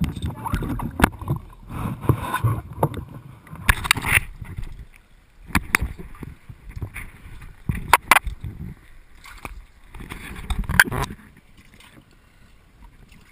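Irregular knocks and rattles aboard a small rowing boat, with short noisy bursts between them, dying away near the end.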